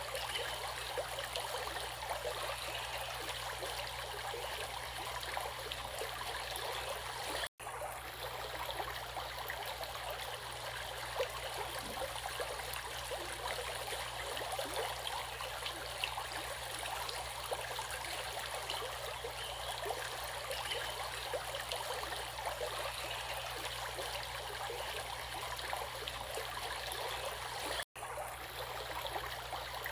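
Stream water flowing steadily. The sound cuts out for an instant twice, about seven seconds in and near the end.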